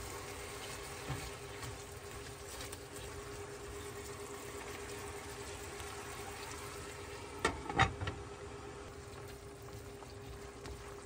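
Ground beef sizzling quietly in a nonstick skillet on a stovetop, over a steady hum. Two sharp knocks come close together about seven and a half seconds in.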